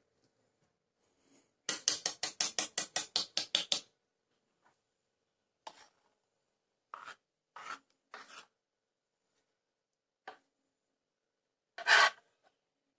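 A metal wire whisk beaten quickly through cake batter in a ceramic bowl, a run of strokes about seven a second for two seconds. Then a few separate scrapes and knocks of a spoon against the bowl as the batter is spooned out, the loudest near the end.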